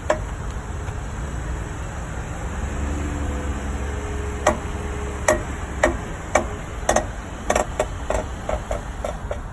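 Repeated sharp clicking knocks from the rear end of a GMC Acadia in a low-speed turn. They start about halfway in and come faster toward the end, over the low rumble of the moving vehicle.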